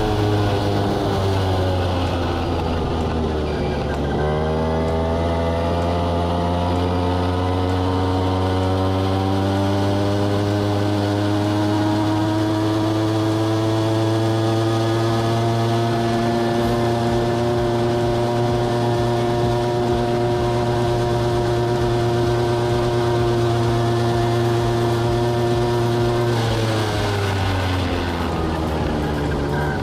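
Mini pocket bike's small two-stroke engine, running on a new carburetor. The revs fall at first, then pick up about four seconds in and climb slowly and steadily for some twenty seconds. They drop back near the end and start to rise again.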